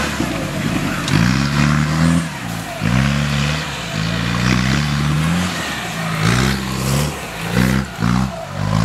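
Off-road vehicle engine revved hard in repeated bursts, its pitch climbing and dropping back about once a second.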